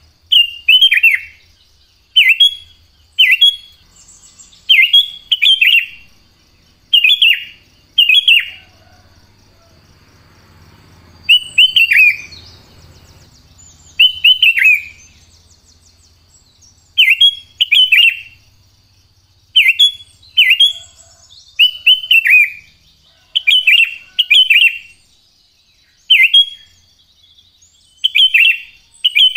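Sooty-headed bulbul (cucak kutilang) calling over and over: short, clear notes that drop in pitch, given singly or in quick pairs every second or two, with a short pause about a third of the way in. A faint steady high tone runs underneath.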